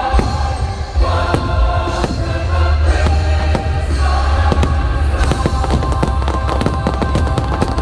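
Orchestral holiday music for a fireworks show plays loudly over a deep rumble of firework bursts. Sharp cracks and pops come faster and denser from about halfway through.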